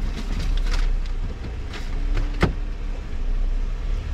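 Jeep engine idling, heard from inside the cabin as a steady low rumble, with a few light clicks and knocks, the sharpest about two and a half seconds in.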